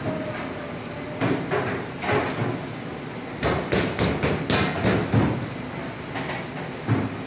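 Scattered knocks and clinks of kitchen utensils against steel, with a quick run of them in the middle, over steady kitchen background noise.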